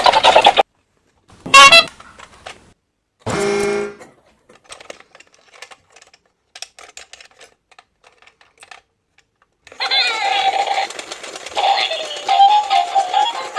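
A few short, loud sound effects, the third a steady honk-like horn tone lasting under a second, then faint scattered clicking, then upbeat music with synthesized singing starting near the end.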